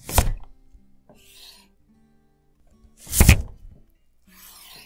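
Chef's knife chopping through a daikon radish onto an end-grain wooden cutting board: two firm cuts about three seconds apart, each followed by a softer scraping of radish and blade on the wood.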